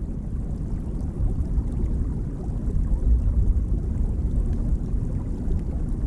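Steady low rumble of moving water heard underwater, without any distinct tone or rhythm.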